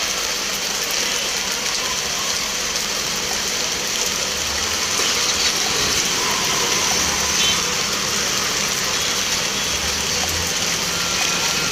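Steady hiss of rain falling on a waterlogged street, with a low hum of vehicle engines from the road.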